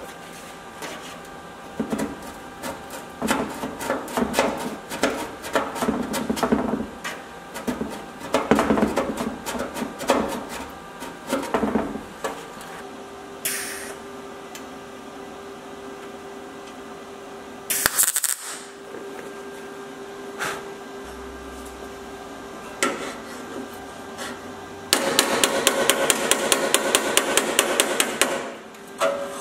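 MIG welder tacking a steel repair panel onto a car door frame: a string of short crackling bursts and clicks. Near the end comes a quick, even run of hammer taps on the sheet metal.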